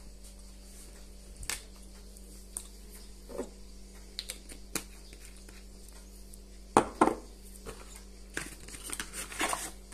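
Scattered light clicks, knocks and rustles of small objects being handled on a counter, the loudest a pair about seven seconds in and a run near the end, over a steady low electrical hum.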